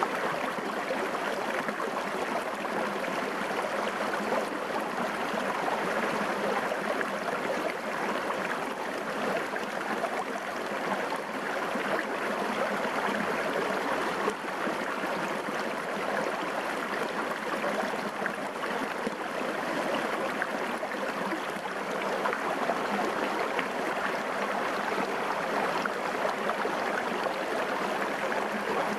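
Shallow forest stream flowing and burbling steadily over rocks, close up at water level.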